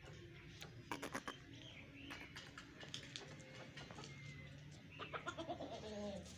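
Aseel chickens clucking faintly, with a few sharp clicks about a second in and a short run of clucks near the end.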